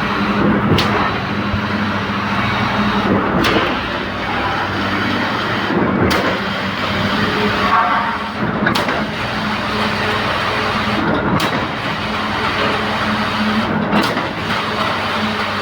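Concrete pump running steadily under a constant engine hum, with a sharp knock about every two and a half seconds as the pump changes stroke.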